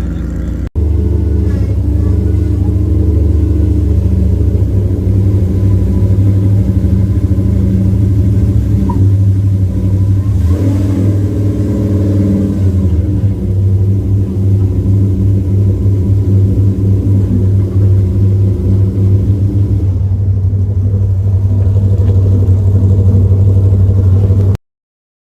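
Off-road vehicle's engine running loud and steady at a low, even speed, with a brief rise and fall in pitch about ten seconds in. It breaks off for an instant just under a second in and cuts off suddenly near the end.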